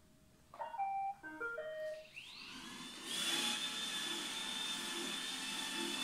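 iRobot Roomba 866 robot vacuum playing its short start-up tune of beeps at different pitches when its Clean button is pressed. Its vacuum motor then spins up with a rising whine about two seconds in and settles into a steady run with a high whine.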